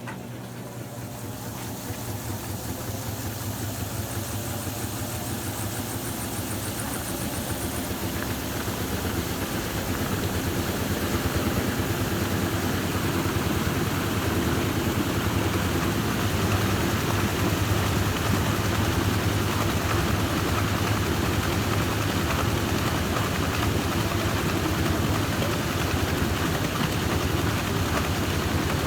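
Brastemp Total 7 kg top-loading washing machine in its spin cycle, speeding up and growing louder over the first ten seconds, then running steadily with a fast vibrating rattle. The noise is the sign of the machine being out of balance in spin.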